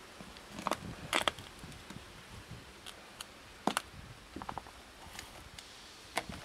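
Plastic food storage container full of dry cat food being handled: irregular sharp clicks and taps of the lid, with a quick run of three about four and a half seconds in.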